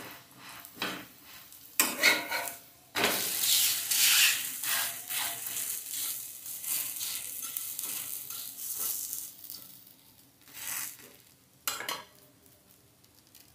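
A metal spatula scrapes under a batter pancake on a flat tawa griddle and flips it. About three seconds in, a loud sizzle starts as the uncooked side meets the hot oil, then fades over several seconds. Two more scrapes come near the end.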